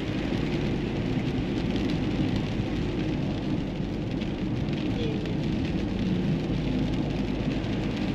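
Steady tyre and road noise of a car driving, heard from inside the cabin, with a low hum underneath.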